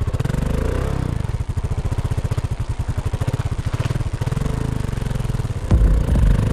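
Motorcycle engine running at a steady idle just after being started, its firing beat even. Near the end the sound grows suddenly louder and lower.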